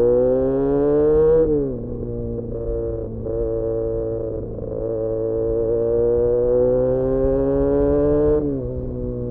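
Benelli 302S parallel-twin engine through an Austin Racing aftermarket exhaust, accelerating: the revs climb, drop sharply about a second and a half in, hold, then climb steadily for several seconds before dropping sharply again near the end.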